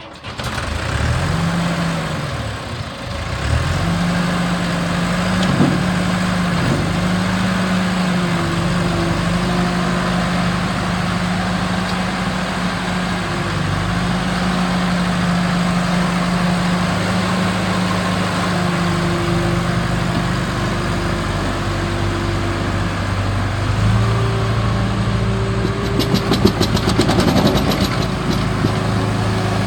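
ASV 4810 skid steer loader's engine starting and revving up. It sags briefly about three seconds in, then runs at a steady speed. The engine note drops lower near the end, with a spell of rapid rattling clicks.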